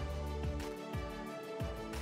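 Workout background music: held notes over a steady beat of low thumps, about two a second.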